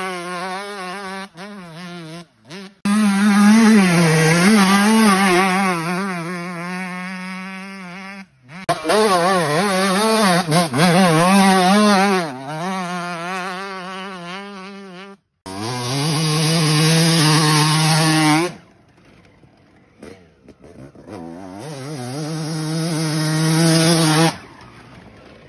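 Two-stroke motocross bike engines ridden hard, the revs rising and falling over and over as the riders blip the throttle through turns. The sound breaks off abruptly several times where clips change. Later the engine twice climbs in revs and holds a steady high note, with a quieter gap between.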